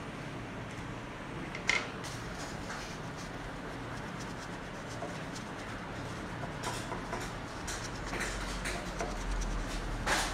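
A crayon scratching on paper in short strokes as a drawing is coloured in, over steady room noise, with a sharp click about two seconds in and another near the end.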